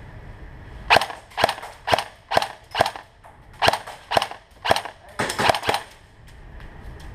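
Airsoft rifle firing single shots: about a dozen sharp snaps starting about a second in, mostly spaced about half a second apart, with a quicker run of four shots near the five-second mark.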